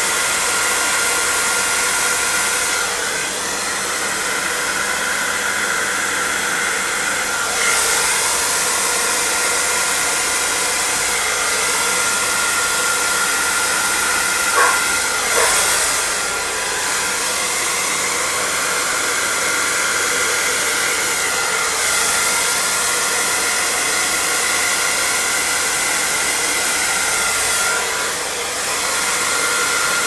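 Handheld hairdryer running continuously, a steady rush of air with a faint constant whine, blowing fluid acrylic paint across a canvas; the rush swells and eases a little as the dryer is moved about.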